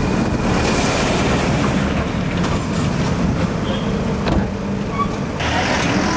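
A motor vehicle's engine running steadily, a low rumble with a hum, mixed with road noise.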